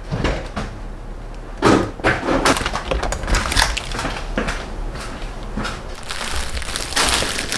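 Plastic grocery and produce bags crinkling and rustling in irregular bursts as groceries are handled and put away.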